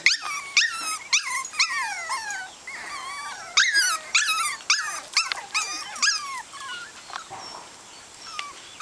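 A litter of Cava-lon puppies yipping together: many short, high-pitched yelps that fall in pitch, several a second, thinning out after about six seconds.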